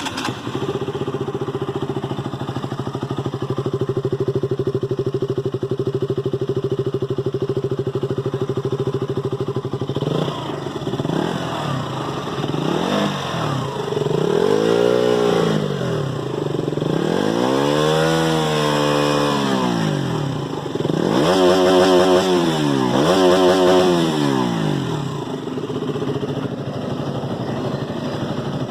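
2018 KTM Duke 200's single-cylinder engine through its stock exhaust, idling steadily for about ten seconds. It is then revved several times, the pitch climbing and dropping back, with a few quick blips in a row before it settles back to idle near the end.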